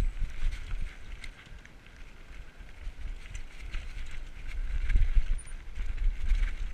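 Diamondback Recoil 29er mountain bike rolling fast down a rocky, gravelly trail: tyres crunching over dirt and stones, with the bike rattling and knocking over bumps and wind rumbling on the camera's microphone. It eases off about two seconds in, and the knocks are loudest around five seconds.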